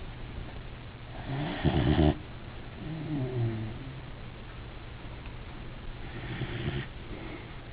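Weimaraner dog snoring in its sleep. A loud snore on the in-breath comes about a second and a half in, followed by a wavering, pitched out-breath, and a softer snore comes near the end.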